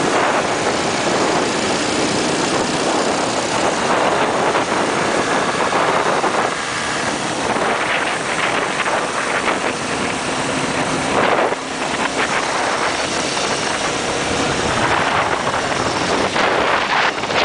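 Wind rushing and buffeting over the microphone at highway speed, with motorcycle engines running underneath, rising and falling in gusts.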